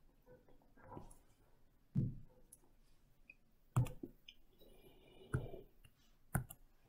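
About five faint, scattered clicks and taps from operating a computer, a few seconds apart, with near silence between them.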